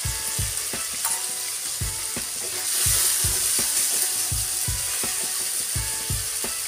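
Spice paste sizzling in hot oil in a metal kadai, with a metal spatula scraping and knocking against the pan in a steady rhythm as the paste is stirred in. The sizzle grows louder about three seconds in.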